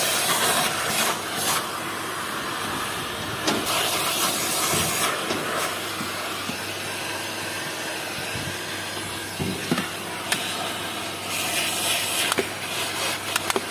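Vacuum cleaner running, air rushing through the hose and crevice nozzle as it sucks over cloth car-seat upholstery. The hiss swells briefly twice as the nozzle is pressed in, and there are a few light knocks of the nozzle against the seat near the end.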